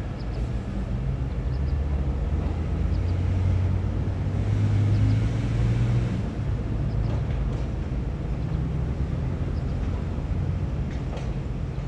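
Diesel engine of a Hyundai 220LC long-reach crawler excavator running as it digs, with a low hum that swells for a couple of seconds about four seconds in as the engine takes hydraulic load, then settles back to a steady run.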